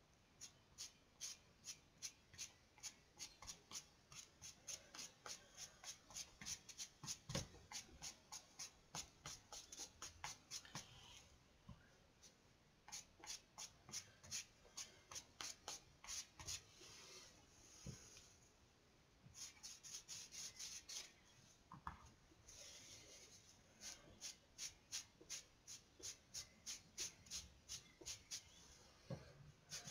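Stick of charcoal scratching across paper in quick repeated strokes, about two to three a second, in runs with short pauses.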